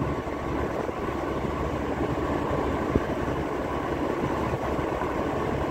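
Steady rumble of a moving road vehicle, tyre and engine noise at an even pace, with one brief click about halfway through.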